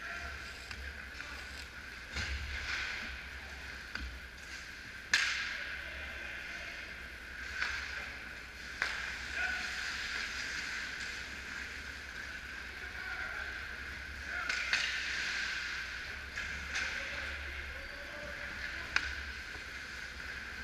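Ice hockey play in a rink: skates scraping and hissing on the ice in swells, with sharp clacks of stick and puck, the loudest about five seconds in and others near nine and nineteen seconds. A steady low hum runs underneath.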